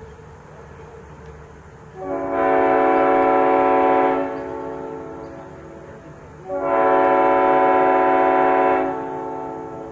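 Multi-chime locomotive air horn on a GP30 blowing two blasts of about two seconds each, sounding a full chord. Each blast cuts off and its sound hangs and fades for a couple of seconds after.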